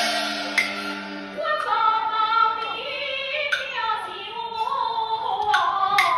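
Gezaixi (Hokkien opera) singing with its band: held instrumental notes for about the first second and a half, then a voice sings a sliding, ornamented melodic line over the accompaniment. Near the end, a few sharp percussion strikes.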